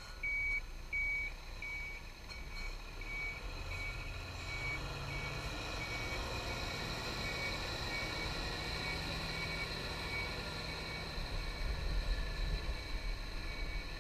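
Tipper truck's reversing alarm beeping about one and a half times a second as the truck backs up, over its diesel engine running. The first few beeps are the loudest, and the engine gets louder near the end.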